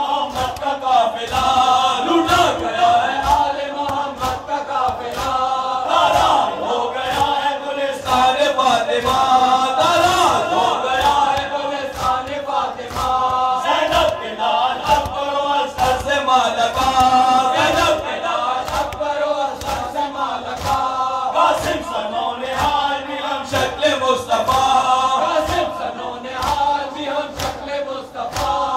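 A group of men chanting a noha (Shia elegy) over a microphone, with a steady rhythmic beat of matam, mourners striking their chests in time.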